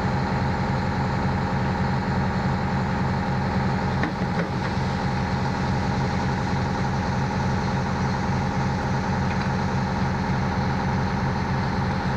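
Fire engine's motor idling steadily, a constant low engine drone.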